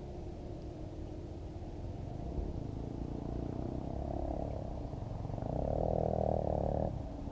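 A motor engine droning, growing louder from about four seconds in and dropping away sharply just before the end.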